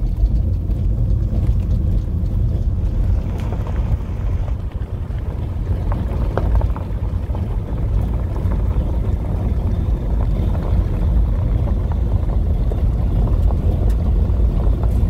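A vehicle driving along a dirt road, heard from on board: a steady, loud, low rumble of engine and road noise.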